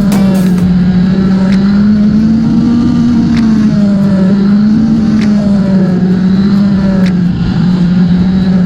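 Motorcycle engine droning on the move at a steady, high pitch that slowly rises and falls a little, as heard in a ride played back at four times speed.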